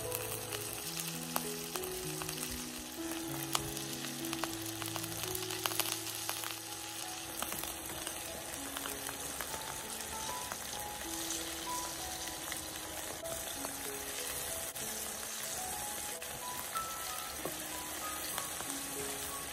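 Food frying in hot oil in a pan, a steady sizzle with scattered sharp pops, under soft background music playing a slow melody.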